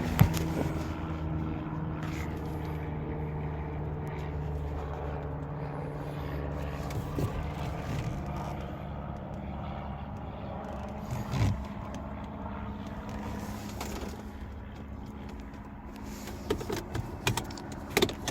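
An engine running steadily at idle, with a few short knocks and clicks near the end.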